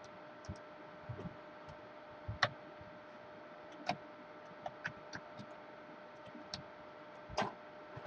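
Scattered clicks of a computer mouse and keyboard, one every second or so, with a quick run of keystrokes a little past the middle, over a faint steady electrical hum.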